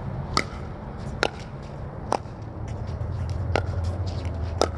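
A pickleball rally: sharp hollow pops of paddles striking the plastic ball, five loud ones at roughly one-second intervals with fainter ticks between, over a steady low hum.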